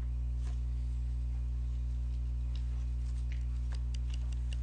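Steady low electrical hum, the same before, during and after the speech, with a few faint clicks and taps near the end.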